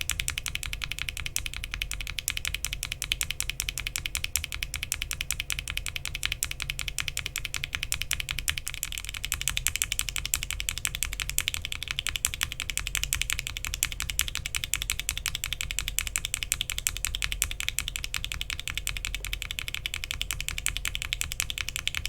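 Fast, continuous typing on a custom mechanical keyboard with lubed Alpaca linear frankenswitches using UHMWPE stems, on an FR4 plate with PBT keycaps. About nine seconds in, the switches change from Cherry top housings to NK Cream top housings.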